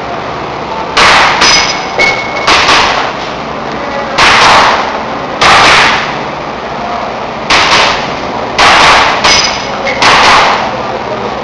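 Airsoft pistol shots fired in quick, irregular strings, about eleven in all, each a sharp loud crack; a few are followed by a brief ringing tone.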